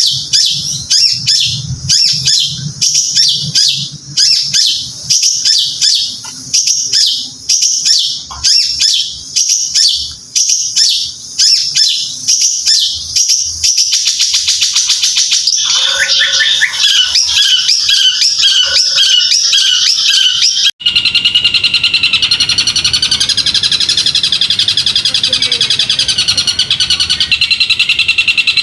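Caged songbird singing: a long run of rapid, evenly repeated high chirps that quickens into a fast trill, then, after a brief break about two-thirds through, a dense continuous trilling warble.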